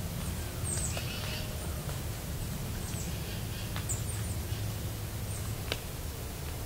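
Small birds giving short, high chirps several times over a steady low rumble, with a single sharp click shortly before the end.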